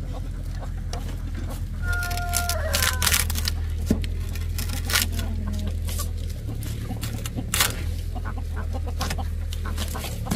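Chickens clucking, with one drawn-out call about two seconds in, among scattered knocks and clicks over a steady low hum.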